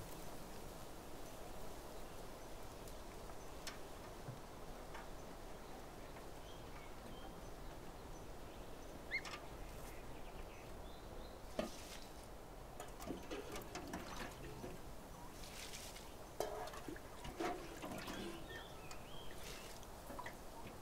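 Quiet background ambience: a faint steady hiss with a few soft clicks, several seconds apart, and brief faint chirps.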